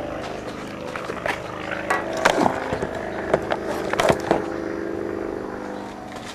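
Three-phase hermetic refrigeration compressor from a container reefer running in reverse rotation, its leads swapped, with a steady hum and several sharp knocks. The hum fades near the end.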